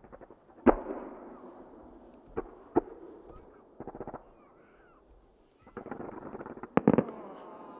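Fireworks bursting in the sky: a loud bang about a second in, two more bangs near three seconds, and two near the end, with stretches of rapid crackling in between.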